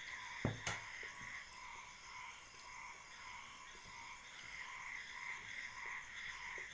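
A steady, high-pitched background chorus with a slight pulse, with a short knock about half a second in and a few faint small ticks later.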